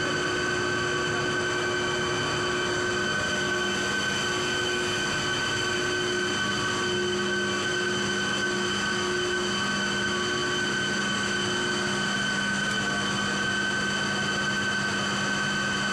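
Steady drone of running plant-room machinery, a chiller plant's water pumps and cooling tower fans, with several constant whining tones over a wash of mechanical noise.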